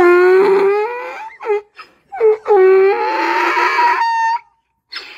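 Young donkey braying: long, loud hee-haw calls that see-saw between a lower and a higher pitch, in two bouts, the first breaking off about a second and a half in and the second running from about two seconds to past four.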